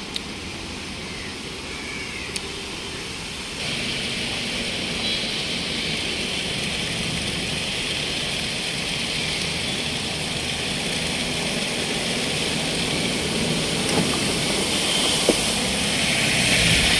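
Floodwater running across a highway as cars drive through it, making a steady rush of water mixed with engine and tyre noise. It gets louder about four seconds in and louder again near the end, as a vehicle passes close through the water.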